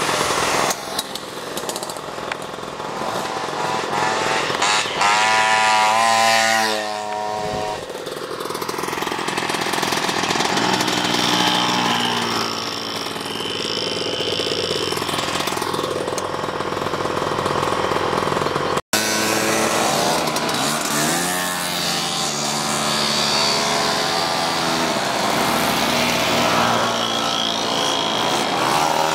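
Small two-stroke moped engines buzzing as mopeds ride past one after another, their pitch dropping as each goes by. About two-thirds of the way in, a short break is followed by a steadier buzz of mopeds ridden in a group, heard from one of the machines.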